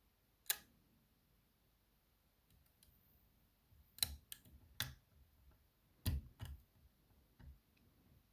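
Sharp metallic clicks of a curved flag dimple pick and tension tool working the pins of an ISEO R6 Plus dimple lock cylinder. There is one click about half a second in, a group of clicks around four to five seconds, two more around six seconds and a fainter one near the end.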